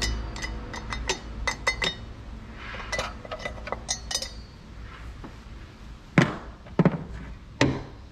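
Hand tools and metal parts clinking and tapping in quick, irregular light strikes, with three heavier knocks in the last two seconds.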